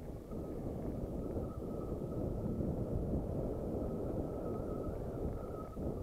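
Wind buffeting the microphone of a camera on a mountain bike descending a gravel singletrack. Under it is a dense low rumble, and above it a thin steady whine that comes in just after the start and fades shortly before the end.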